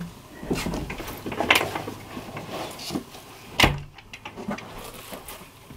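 Someone rummaging among stored things, with rustling and light knocks, heard from a few metres off in a small room. One sharper knock about three and a half seconds in is the loudest sound.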